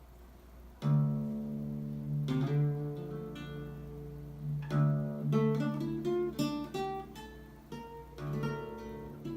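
Solo acoustic guitar playing a slow instrumental piece. A chord is struck about a second in, followed by single melody notes over ringing bass notes, with further chords struck between them.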